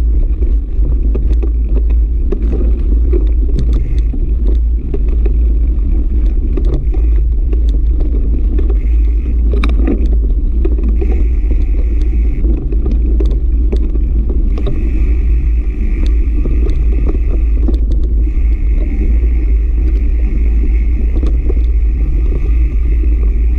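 Mountain bike riding over a dirt trail: a loud steady rumble of wind buffeting the camera microphone and tyres rolling on sand, with frequent small rattles and knocks from bumps. From about halfway a steady higher whir comes in, drops out briefly, and returns.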